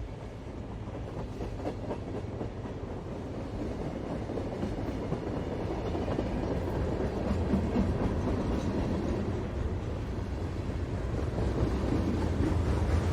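Freight train rumbling by with a clickety-clack of wheels on the rails, growing steadily louder as it comes closer.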